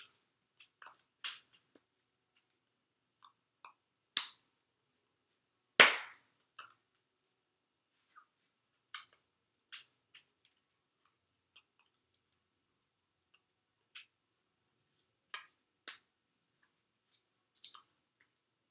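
Scattered sharp slaps and clicks of a signer's hands striking each other and the body while signing, about a dozen in all, with the loudest and fullest slap about six seconds in.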